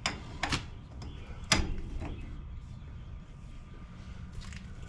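Sharp metallic clicks and clanks of a wrench and socket on a trailer axle's spindle nut as it is backed off slightly to ease bearing drag: four clicks in the first second and a half, the loudest about a second and a half in.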